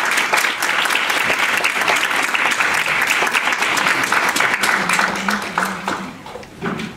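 Audience applauding, a dense run of hand clapping that thins out and fades near the end.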